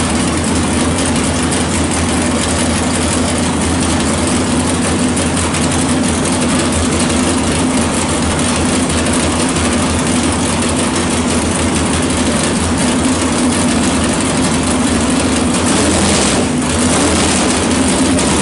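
The 427 V8 of a 1970 Chevy Nova drag car idling steadily and loud.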